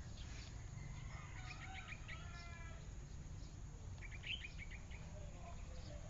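Small birds chirping: two quick runs of short high chirps, about a second and a half and four seconds in, with a brief string of whistled notes between them, over a steady low rumble.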